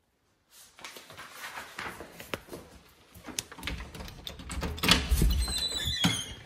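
A wooden door being opened: knocks, clicks and footsteps with handling noise, starting about half a second in, and a brief high squeak near the end.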